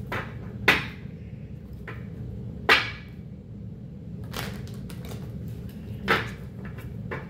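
Tarot cards being handled and slapped down on a glass tabletop: a series of sharp taps at uneven intervals, with three louder slaps, one early, one near the middle and one near the end.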